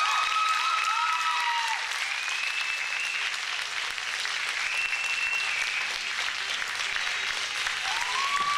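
Audience applauding steadily, with a few long, high calls carrying over the clapping here and there.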